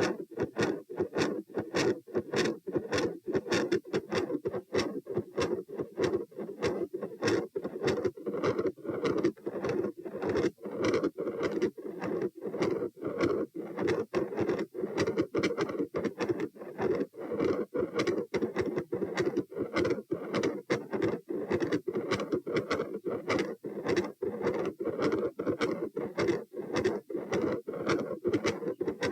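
Human heart sounds picked up at the chest: sharp beats repeating evenly a few times a second over a continuous murmur that does not stop between them. This is the 'continuous machinery murmur' the recorder considers consistent with patent ductus arteriosus, though it could also come from an aortopulmonary window or a collateral vessel.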